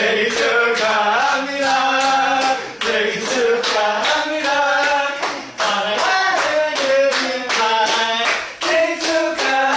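A group of young men singing a birthday song together while clapping along in a steady rhythm.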